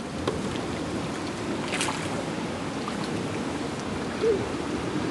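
Steady splashing and rippling of water, with a short higher note about four seconds in.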